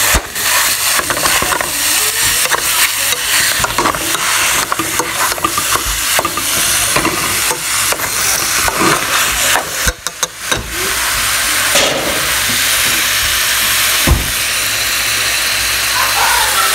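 Raw ground beef sizzling steadily in a hot stainless pot, with a utensil clicking and scraping against the pot as the meat is broken up and stirred. The sizzle dips briefly about ten seconds in.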